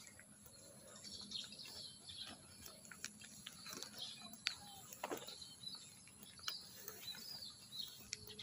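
Faint outdoor birdsong: many birds giving short, scattered chirps, with a few sharp clicks, the loudest about halfway through.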